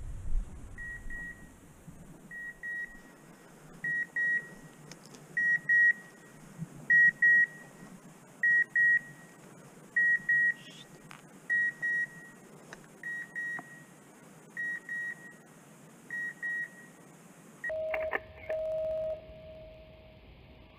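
Electronic beeper sounding a high, clean double beep about every second and a half. Near the end a lower, longer tone sounds.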